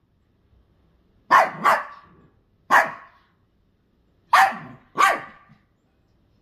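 Yorkshire terrier barking five short, sharp barks: a quick pair, a single one, then another pair. The owner takes the barking as the dog asking for a Beggin' Strip treat.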